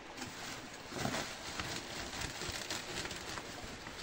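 Dry grain feed being scooped by hand out of a woven plastic sack into a bucket: an irregular rustle of the sack and a patter of trickling grain, loudest about a second in.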